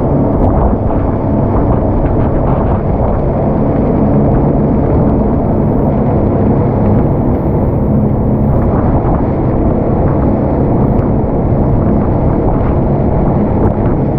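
Speed boat running at cruising speed: a steady engine drone under rushing water, with wind buffeting the microphone.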